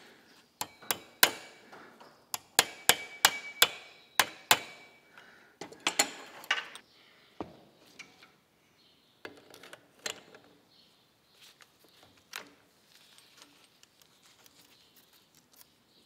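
Screwdriver clicking and tapping against a Husqvarna chainsaw's centrifugal clutch as new clutch springs are worked into place: a quick run of sharp metallic clicks, about three a second, some of them ringing. After that come a few scattered clinks and knocks as the saw is handled.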